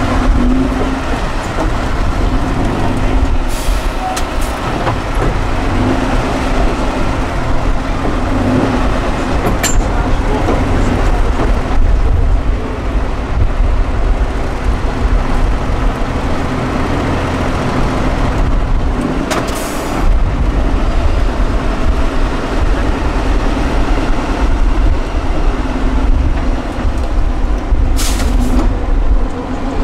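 Diesel engine of an 8x8 Tatra trial truck running fairly evenly as the truck crawls over rough ground, with a few short hisses.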